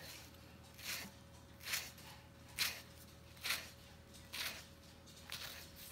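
Kitchen knife scoring a halved mango in a crisscross pattern: six quiet, short slicing strokes through the flesh, evenly spaced about one a second.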